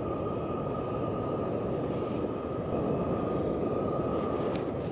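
A propane camp stove burner running: a steady rushing noise with a faint, steady high whine.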